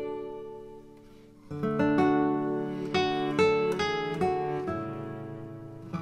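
Background music on acoustic guitar, plucked and strummed: a chord rings and fades, then the playing picks up again about one and a half seconds in.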